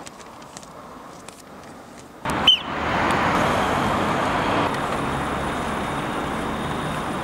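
Roadside traffic noise: a steady rush of passing cars that sets in abruptly about two seconds in, with a brief high squeak at its start, after a quieter stretch with a few faint clicks.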